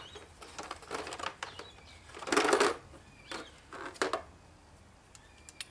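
Clicks and metallic clunks of a torque wrench being handled and fitted, in a few separate bursts, the loudest about halfway through.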